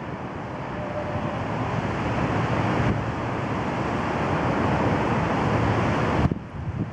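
Rushing wind on the microphone mixed with highway traffic noise, building up over several seconds and dropping off suddenly near the end.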